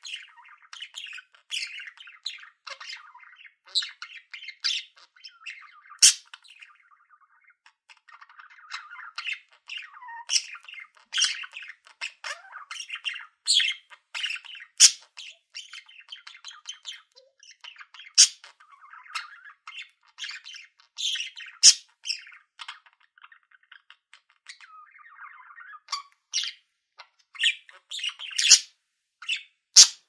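Budgerigars chattering: a running soft warble broken by frequent short, sharp chirps and squawks.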